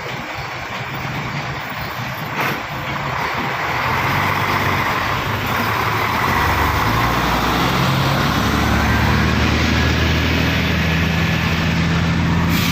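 Heavy vehicle's engine running close by, its low rumble growing louder about four and six seconds in and then holding steady. A short sharp knock about two seconds in.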